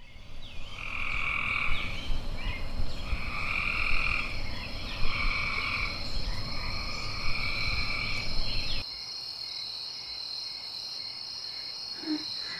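Frogs croaking in a run of about five calls, each about a second long, over a steady high-pitched whine. A low rumble underneath stops about nine seconds in.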